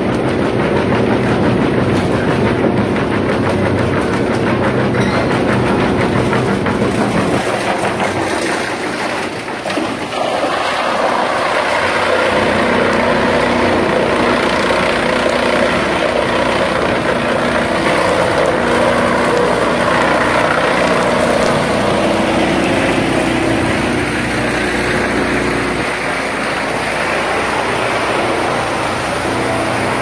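Drum wood chipper running loud and steady, its motor hum under a dense rapid clatter of wood scraps and offcuts being fed in and chipped. The sound dips briefly about ten seconds in, then turns brighter and denser.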